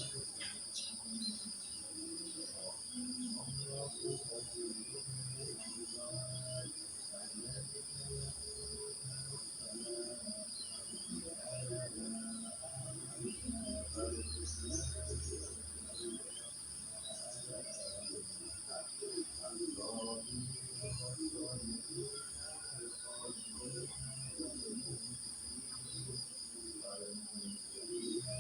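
Crickets chirring steadily in two high, unbroken trills, with scattered short bird chirps and many brief low calls underneath.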